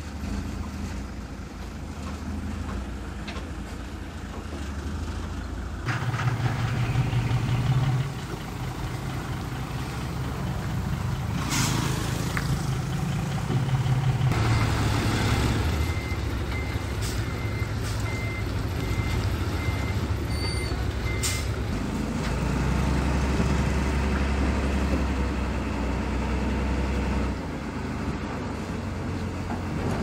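Diesel engines of a dump truck and bulldozer running and changing pace as they work soil. There is a short hiss a little before the middle, and a reversing alarm beeps steadily for about five seconds past the middle.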